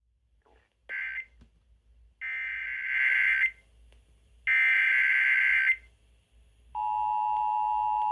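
Emergency Alert System tornado warning broadcast on FM radio: three bursts of SAME digital header data, a harsh warbling screech (the first burst brief), then the steady two-tone EAS attention signal, which begins a little before the end.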